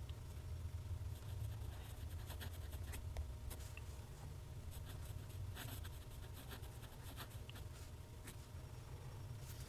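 TWSBI ECO fountain pen's steel nib scratching faintly across Clairefontaine paper while writing cursive, in quick, irregular little strokes. A steady low hum runs underneath.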